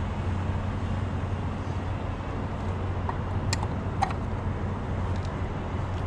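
Steady low hum of an idling vehicle engine, with two short sharp clicks half a second apart a little past halfway.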